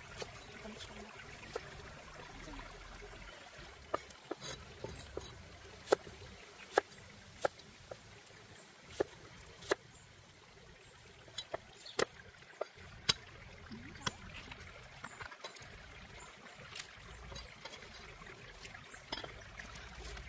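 Water trickling faintly, with scattered sharp clicks and knocks at irregular intervals; the clicks are the loudest sounds.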